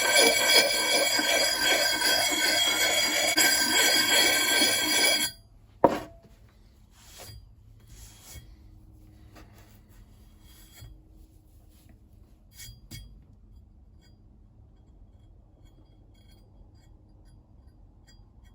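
Steel axe head being sharpened by rapid strokes, ringing with many clear metallic tones. The strokes stop suddenly about five seconds in, followed by one sharp click; then only a few faint clicks of handling.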